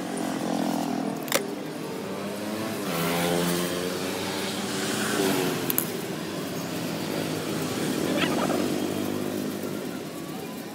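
Passing road traffic, mostly motorbikes and cars, with engine notes rising and falling as they go by. A few short sharp clicks break through about a second in, near the middle and later on.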